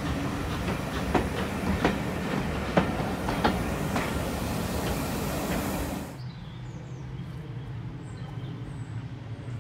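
Train coaches rolling past close by, a steady rumble with sharp clicks as the wheels cross the rail joints. About six seconds in this cuts off abruptly to a much quieter outdoor background with a few faint high chirps.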